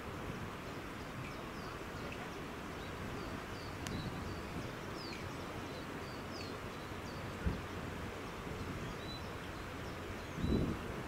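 Outdoor ambience: small birds chirping over a steady background hiss, with two brief low thumps, one about two-thirds of the way through and one near the end.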